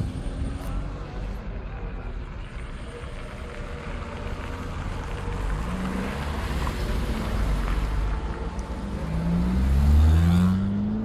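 Road traffic: a steady low rumble of car engines, with a car driving past close by, loudest about ten seconds in as its engine note rises.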